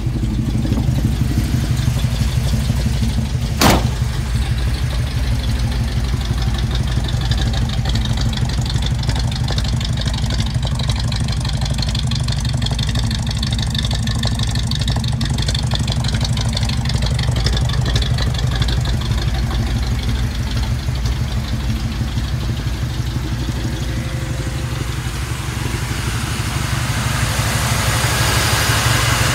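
A lifted 1956 Chevy pickup's V8, believed to be a Chevy 350, idling steadily with a deep low rumble. A single sharp clack comes about four seconds in as the cab door is shut, and a rushing hiss grows near the end at the front of the truck, where an electric radiator fan sits behind the grille.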